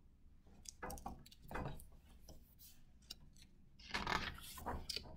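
Faint paper rustle and handling of a picture book as a page is turned, in a few short bursts, with the loudest cluster about four seconds in.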